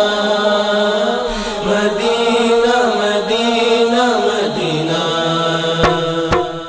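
A naat chorus of male voices chanting in layers over a held drone note, with no clear words. A few short clicks come near the end.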